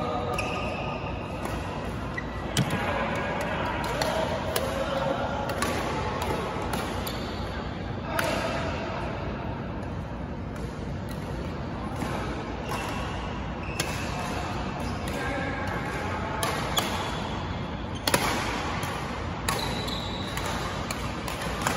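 Badminton rackets hitting a shuttlecock during doubles play: sharp smacks at irregular intervals, some a second or two apart, others several seconds apart.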